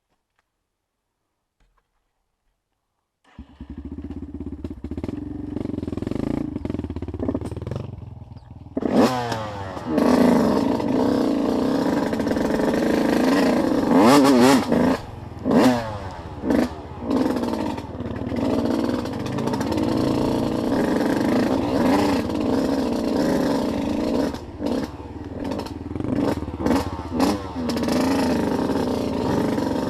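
Dead silence for about three seconds, then an off-road vehicle's engine running. From about nine seconds in it revs again and again, pitch rising and falling as it is ridden along the trail.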